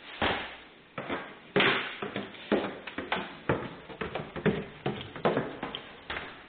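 Footsteps going down a flight of stairs indoors, a firm knock on each tread at about two steps a second.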